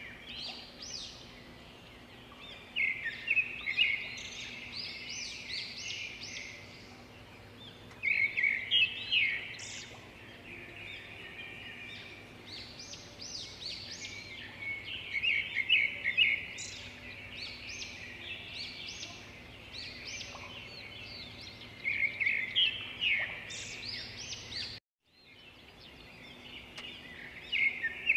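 Small birds chirping and twittering in repeated bouts every five or six seconds, over a faint steady hum, with a brief cut to silence near the end.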